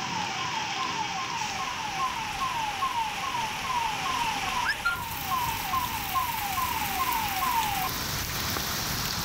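Heavy rain falling steadily, with an electronic siren repeating a short falling wail about two to three times a second. The siren cuts off about eight seconds in.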